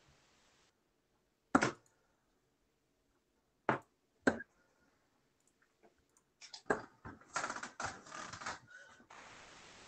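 Computer keyboard clicks: a few separate sharp key or mouse clicks, then about two-thirds of the way in a dense run of typing, with a steady hiss coming in near the end.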